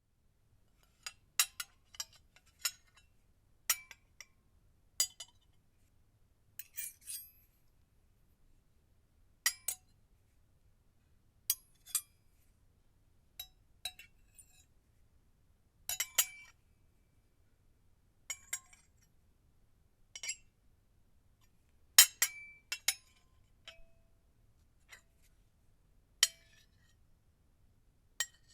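Metal cutlery clinking and clanging against a plate, in separate sharp clinks and short clusters every second or two, some ringing briefly.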